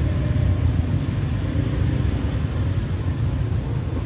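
Steady low background rumble with no distinct sharp sounds.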